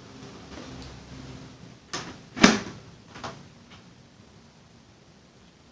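Plastic clicks from the NJS ZX-1 helmet's double visor being worked: two sharp clicks about half a second apart in the middle, the second the loudest, then a lighter click.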